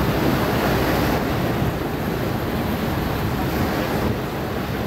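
Steady rush of wind and sea wash on open ocean, with wind buffeting the microphone.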